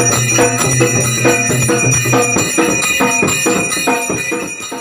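Devotional music with a quick, even jingling percussion beat, like a tambourine, over steady ringing metallic tones. A low drone drops out about halfway through, and the music fades out near the end.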